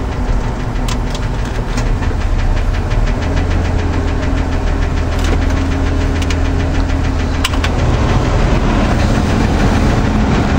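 1993 Ford F-150's engine idling steadily inside the cab, with the heater blower fan running, and a few sharp clicks as the dashboard climate-control knobs are turned.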